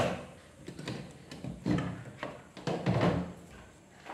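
Things being handled and set down in a kitchen cabinet: a sharp knock at the start, then a few clattering, rustling bursts of items being placed on a shelf.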